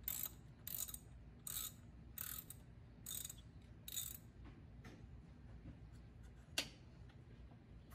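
Hand socket ratchet clicking in six quick strokes a little under a second apart, backing out the thermostat housing bolts. The ratcheting stops about halfway through and is followed by light ticks and one sharp click.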